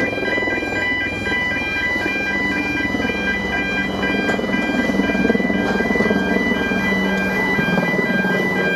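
Level crossing warning alarm sounding a rapid pulsing warble while a Hunslet narrow-gauge steam locomotive, No.1430 "Dolbadarn", hauls its coaches over the crossing. The train's rumble grows from about three seconds in.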